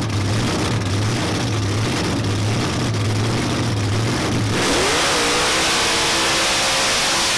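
Supercharged V8 of an early Ford Mustang coupe idling with a slow, even pulse. About four and a half seconds in it revs up quickly and holds at high revs as the rear tyres spin into a smoking burnout.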